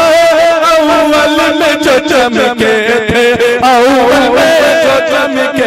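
A man singing a naat, an Urdu devotional poem in praise of the Prophet, in long drawn-out notes with wavering ornaments, amplified through a microphone.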